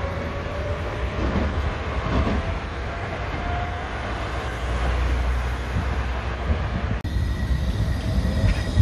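Electric trams running on street rails with road traffic: a steady rumble of wheels and running gear, with a faint whine fading early on. About seven seconds in the sound changes abruptly to a low-floor articulated tram rolling close by.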